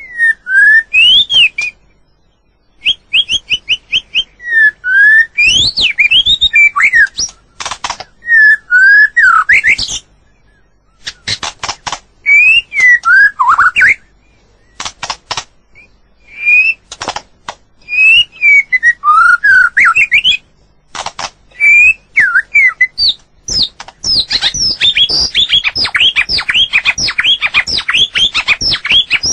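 White-rumped shama singing: phrases of clear whistled notes sliding up and down, mixed with sharp clicks and broken by short pauses. Near the end the song turns into a fast, unbroken run of notes.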